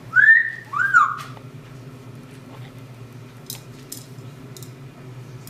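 A parrot gives a two-note wolf whistle in the first second or so: a rising note that levels off, then a note that rises and falls. A few faint clicks follow.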